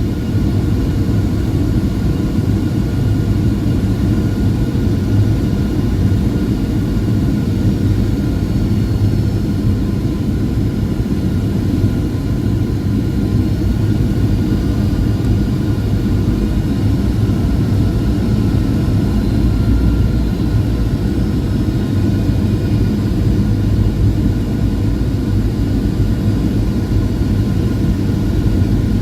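Jet airliner cabin noise on the approach to landing: a steady, dense rumble of engines and airflow, with faint thin whining tones above it and no change throughout.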